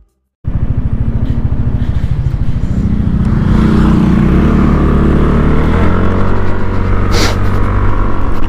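Yamaha Nmax scooter's single-cylinder engine running under way, a steady rapid pulsing. It cuts in suddenly about half a second in and rises gradually in pitch partway through, with a brief hiss about seven seconds in.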